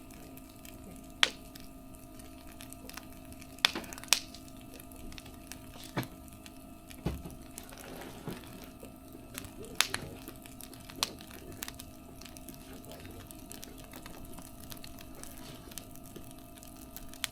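Wood fire crackling: irregular sharp pops and cracks, a dozen or so, over a faint steady background.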